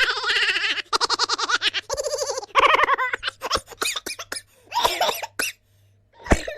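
A person laughing in rapid, high-pitched pulses, in several bursts with short breaks between them. There is a sharp click near the end.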